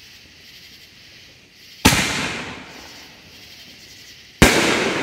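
Two loud booms from 6-inch consumer canister shell fireworks, about two and a half seconds apart, each fading away over a second or two.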